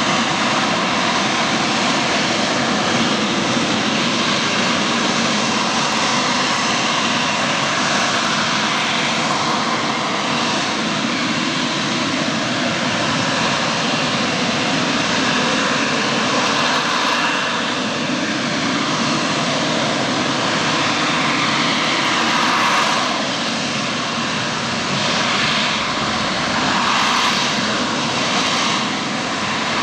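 AV-8B Harrier II jet hovering, its Rolls-Royce Pegasus vectored-thrust turbofan giving a loud, steady jet roar. The roar swells and eases a few times near the end as the jet holds its hover.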